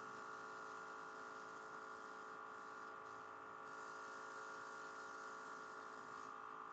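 Airbrush spraying water-based body paint: a faint hiss of air over a steady hum, the hiss easing off briefly twice.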